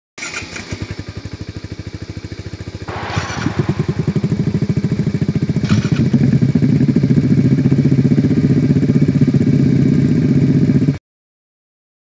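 Kawasaki Z125 Pro single-cylinder engines on its stock exhaust and on an iStunt exhaust with and without the silencer, started up one after another and layered on top of each other: three starts about three seconds apart, each catching at once and settling into an idle, the sound growing louder with each one. It cuts off abruptly about a second before the end.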